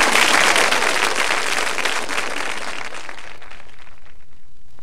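Studio audience applauding at the end of a comedy monologue. The clapping thins out and dies away over the last second or two.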